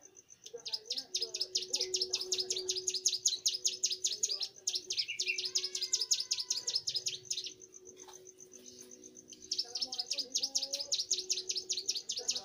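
A young prenjak gunung, a prinia, singing fast, high chattering trills of rapidly repeated notes. One long burst runs through the first half, and a second starts shortly before the end. Softer whistled calls that glide up and down come in between.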